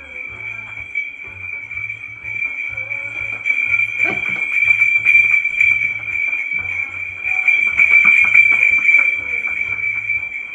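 Neck bells on passing pack animals jingling continuously, growing louder about four seconds in and easing off near the end.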